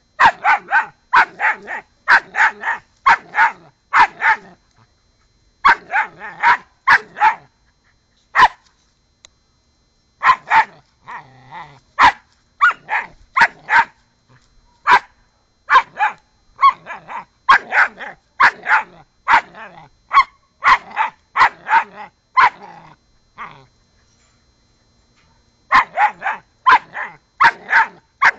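A puppy barking at a cat in quick runs of short, high yaps, about two to three a second, broken by a few brief pauses.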